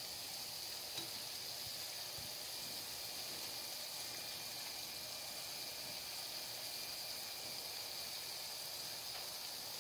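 Oliebollen dough balls deep-frying in hot oil: a steady, even sizzle of bubbling oil.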